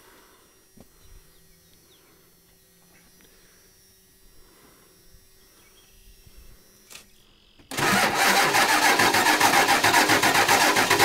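Low background with a couple of faint clicks, then about three-quarters of the way through, a 1992 Ford F-350's starter cranks the hard-starting engine loudly with an even, fast pulse. It is running on a freshly fitted 1000-cranking-amp battery.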